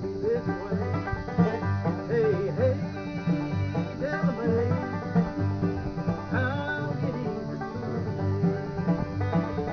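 Acoustic bluegrass trio of five-string banjo, mandolin and acoustic guitar playing a song together, the banjo picking busily over the guitar's steady bass-and-strum rhythm.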